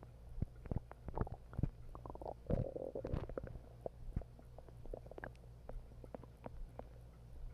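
Human stomach growling and gurgling while digesting a meal of spicy chips: a run of quick pops and bubbling gurgles, busiest in the first half, with one longer gurgle about three seconds in.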